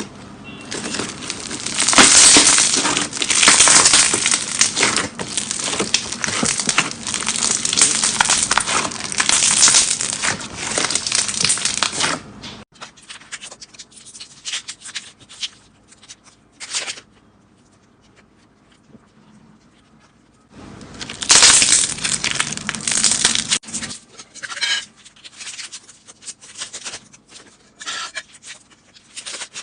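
Slime being squeezed and kneaded by hand, making a dense crackling for the first twelve seconds or so. Then scattered pops and clicks, another loud spell of crackling a little past two-thirds of the way through, and sparse clicks again near the end.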